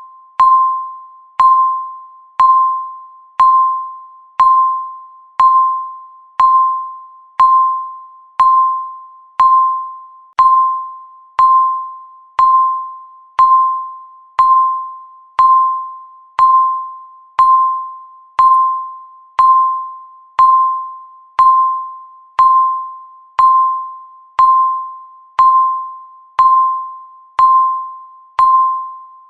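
Countdown timer's per-second beep: one short electronic tone at the same pitch, struck once a second and fading quickly each time, marking each second as the timer counts down.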